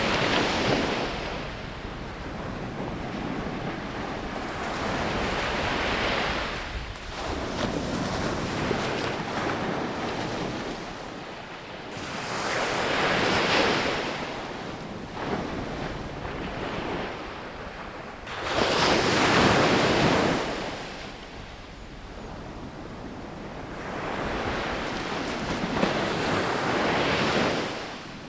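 Sea waves breaking and washing up a sandy beach, surging in and drawing back about every six seconds, with the biggest break about two-thirds through.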